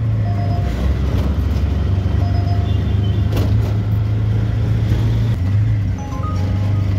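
Auto-rickshaw engine running steadily as it drives, a loud low drone mixed with road noise, heard from inside the open passenger cabin.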